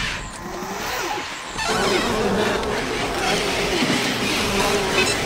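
Electric whirring of a humanoid robot's servo motors as it moves, with short gliding whines in the first second or so and a fuller, steadier whir from about a second and a half in.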